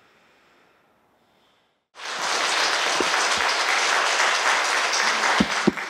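Audience applauding in a lecture hall. It starts abruptly about two seconds in and ends with a few last scattered claps.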